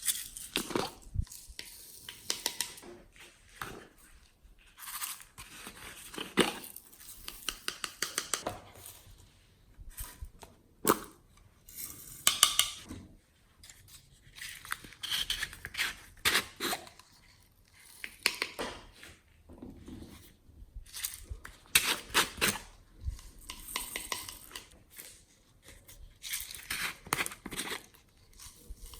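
Glossy slime being squeezed and kneaded by hand: irregular runs of sticky clicks and pops, with short pauses between handfuls.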